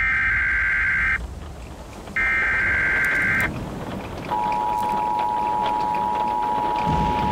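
Emergency Alert System signal from the television. Two harsh, screeching data bursts of about a second each come a second apart. From about four seconds in the steady two-tone attention signal follows. A low rumble sits underneath.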